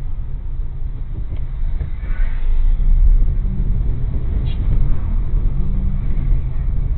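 Steady low rumble of a car driving slowly through city traffic, engine and road noise heard from inside the cabin.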